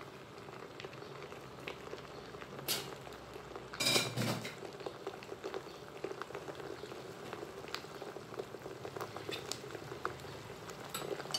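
Peeled shrimp frying in hot oil with garlic in a pan: steady sizzling and bubbling with scattered small pops. About four seconds in there is a brief, louder clatter.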